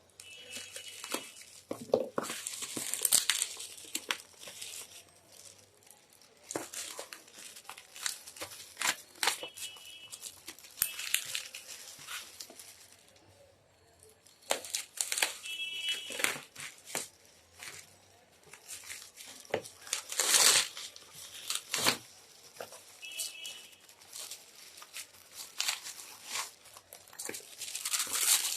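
Packaging being crinkled and torn open by hand while unpacking a keyboard, in irregular rustling bursts with brief pauses, hard going because it is tightly packed.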